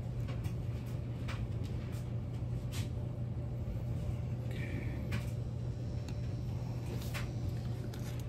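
Faint, scattered clicks of a small trimmer carburetor's parts being handled and taken apart, over a steady low hum, with a brief high squeak a little past halfway.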